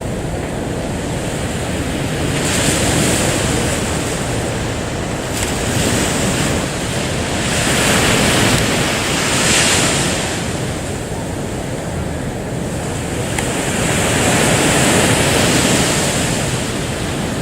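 Waves washing in, a steady rushing that swells and ebbs every few seconds, with wind rumbling on the microphone.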